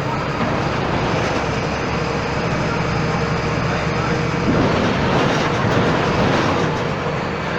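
Volkswagen Volksbus 17.230 EOD city bus with a Marcopolo Torino body, its engine running steadily as the bus drives, swelling a little about halfway through.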